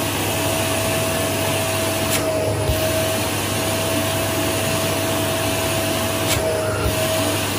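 Household vacuum cleaner running steadily, its nozzle drawn over the skin of the outer knee and leg for suction massage. The sound is briefly muffled twice.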